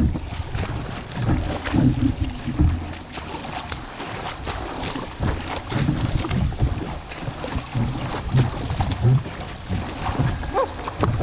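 Double-bladed paddle strokes splashing and churning the water beside a sit-inside kayak paddled at racing pace, in a fast irregular run of splashes and knocks, with wind buffeting the microphone.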